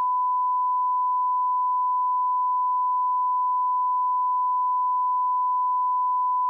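Steady electronic test tone: one pure beep held at a single pitch and level, unbroken.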